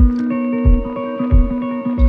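Instrumental relaxation music: held notes over a steady low beat about every two-thirds of a second.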